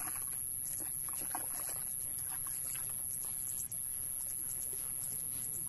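Steady rush of a swollen, fast-flowing stream, over a constant high-pitched whine, with a few faint light clicks of plastic buckets and lids being handled in the first few seconds.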